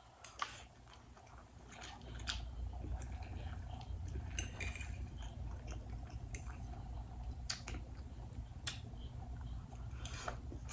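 A person chewing and biting food close to the microphone, with scattered wet mouth clicks and smacks. A steady low hum sets in about two seconds in.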